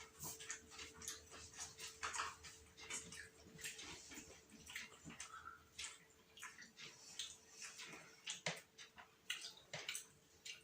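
People eating chicken biryani: irregular wet chewing, lip smacks and small clicks, with a faint steady hum underneath.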